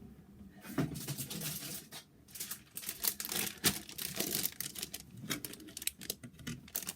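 Motherboard packaging being handled: irregular rustling and crinkling with quick clicks and taps, starting about a second in.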